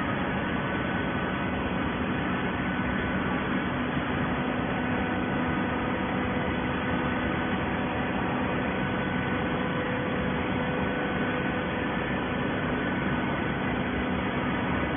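Plastic bottle baling machine running steadily: a constant machine hum with several steady tones over an even whirring noise.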